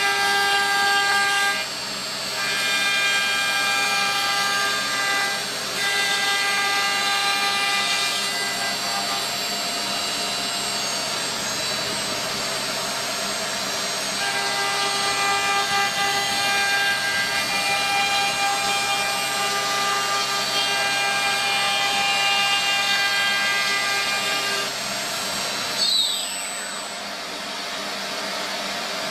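Chencan 3023 CNC machining centre's router spindle cutting outlines into a white sheet: a steady high machine whine over cutting noise that swells and eases as the bit moves. Near the end there is a short loud sound, and the low hum under it stops.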